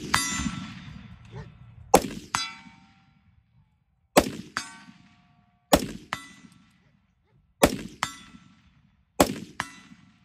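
Five .308 rifle shots from an AR-10, roughly two seconds apart. Each shot is followed about half a second later by the ringing clang of the bullet hitting a steel silhouette target down range.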